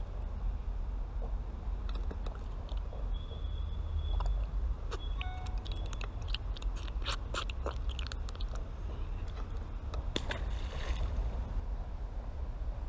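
Puffer fish being handled and unhooked by hand: a run of small clicks and crackles in the middle, over a steady low wind rumble on the microphone.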